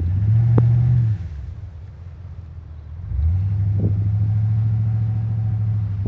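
Plow truck's engine running with a steady low drone while the truck works with its V-plow; the drone fades about a second in and comes back strongly about three seconds in.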